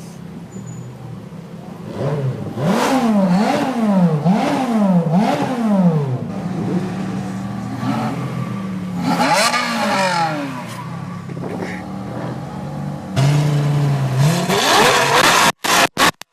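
A sports car engine is revved hard in several quick blips, each one rising and falling in pitch. It settles to a steadier note and is revved once more. Near the end a loud engine note comes in suddenly and climbs as a car accelerates.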